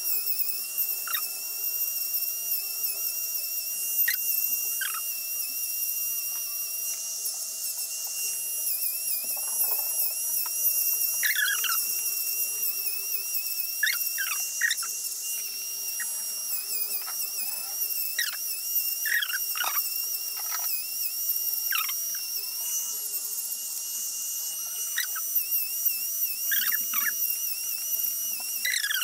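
Electric manicure drill with a green-band carbide cutter running with a steady high whine that wavers slightly in pitch, with irregular short scratchy grinding strokes as the bit files old gel polish off fingernails.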